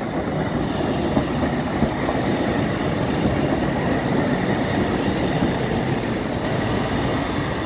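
Class 153 and Class 150 diesel multiple units passing slowly. Their underfloor diesel engines run steadily, and the wheels rumble and knock over the rails and pointwork.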